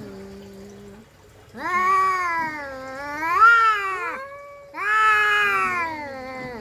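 Two domestic cats squaring off before a fight: a low, steady growl, then two long wavering yowls of threat. The first yowl swells and rises in pitch near its end; the second slides downward.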